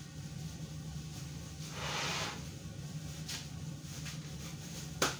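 Hands working the valve and regulator on top of a gas cylinder: a short hiss about two seconds in and a sharp click near the end, over a steady low hum.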